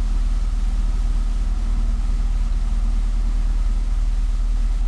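Cessna 172S's four-cylinder Lycoming engine idling steadily at about 1000 RPM, heard from inside the cockpit.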